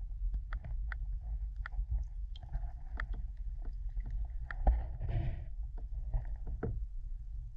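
Sound heard through a camera held underwater beside a kayak: a steady, muffled low rumble of water with irregular clicks and knocks and a few short sloshing bursts, the loudest knock about two thirds of the way in.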